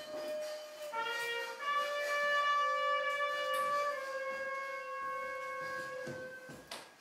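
Live music from a single wind instrument holding long notes. It shifts to a lower note about a second in, then sustains one long note that sinks slightly in pitch and fades out near the end.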